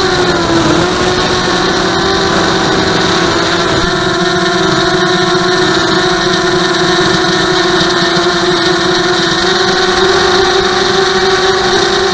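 Vortex 250 FPV racing quadcopter's brushless motors and propellers whining in flight, heard from on board. The pitch drops in the first second as the throttle eases, then holds steady with a slight rise about three quarters of the way through.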